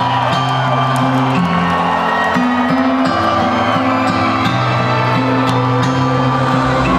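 Loud electronic dance music played through a large event sound system, with held bass notes that change every second or so.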